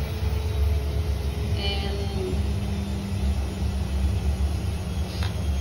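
Steady low rumbling hum with a faint steady tone above it. Near the end come a couple of light clicks as the plastic lid of a spice jar is handled.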